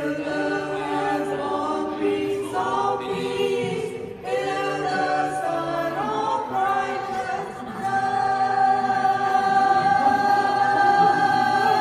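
Choir singing a Christmas song in several parts, phrase by phrase, then holding one long chord over the last few seconds.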